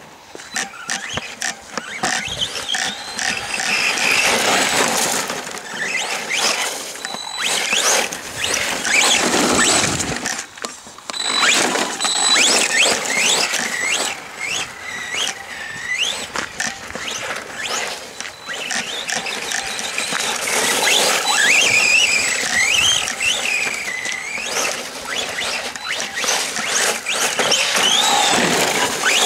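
Arrma Senton 3S BLX RC short-course truck driving hard: the whine of its brushless motor and gears rises and falls in pitch as the throttle is worked. Under it is the noisy crunch and spatter of the tyres on wet dirt.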